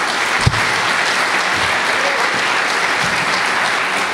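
Audience applauding steadily, with a low thump about half a second in.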